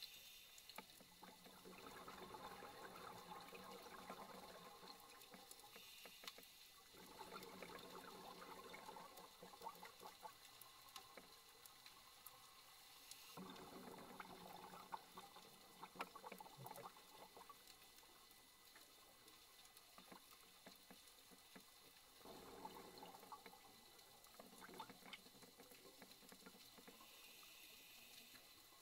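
Faint, muffled scuba breathing heard through an underwater camera housing. A brief hiss of the regulator on each inhale is followed by several seconds of exhaled bubbles, and this repeats a few times.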